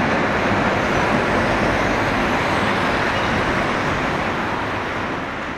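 City street traffic noise: cars driving past close by while a Konstal 105Na tram rolls away along the street tracks, the whole sound easing off near the end.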